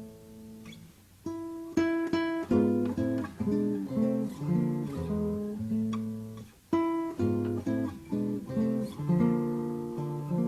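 Acoustic guitar music: plucked notes and chords in a steady flowing pattern, briefly dying away about a second in and again at about six and a half seconds before strong new chords.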